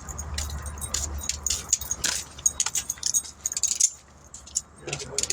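Keys jangling in a run of light metallic clinks, over a low steady hum.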